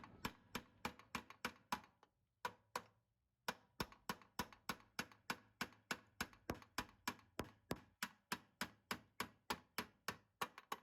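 Light, steady hammer taps, about three a second with a short pause about two seconds in, on a metal pin driving out a VW Beetle's deck lid hinge pin.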